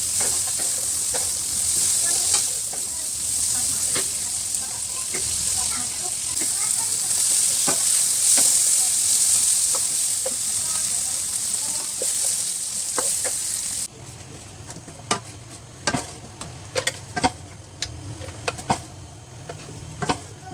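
Tempe frying and sizzling in a pan while a spatula stirs it, with scattered clicks of the spatula against the pan. About two-thirds of the way in, the sizzling cuts off abruptly, leaving only spatula knocks and scrapes.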